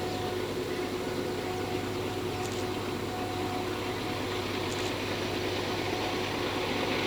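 Loaded freight train running steadily up a steep grade: a continuous even rumble with a steady tone held over it.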